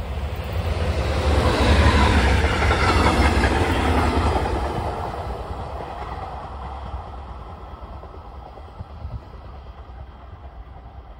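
Electric locomotive hauling a double-deck regional passenger train passes at speed. The rush of wheels on rails rises to its loudest about two seconds in, then fades steadily as the train runs away.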